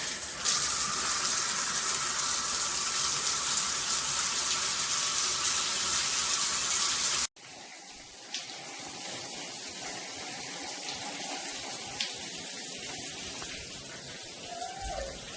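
Water spraying from a Moen Magnetix handheld shower head: a loud, steady hiss. About seven seconds in it cuts off abruptly, and a quieter spray carries on.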